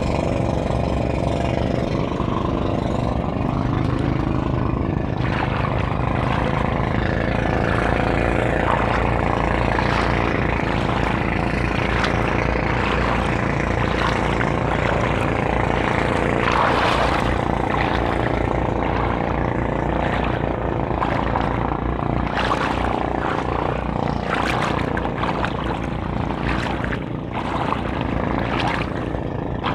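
Outrigger (bangka) boat engine running steadily nearby, a constant low engine hum.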